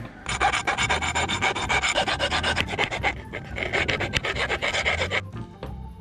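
A metal file worked in quick back-and-forth strokes over the cut top of a bicycle fork's steerer tube, filing down the ridge left by a pipe cutter so the spacer and stem will slide on. The filing stops about five seconds in.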